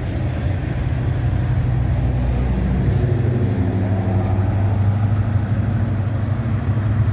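Diesel locomotive engine running close by, a steady low rumble that grows a little fuller about three seconds in.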